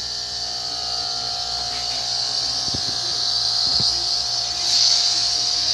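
Homemade air compressor built from a refrigerator compressor running with a steady hum under a steady hiss of air; the hiss swells near the end.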